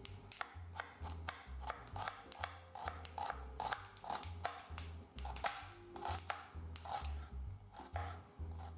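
Kitchen knife chopping a white onion finely, a quick run of short knife strikes about three a second.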